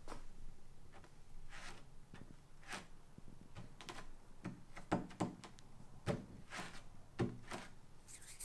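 Fingertips tapping and pressing on a painted plywood cabinet top whose oil-based polyurethane coat is still tacky and has not cured. A dozen or so soft, irregular taps.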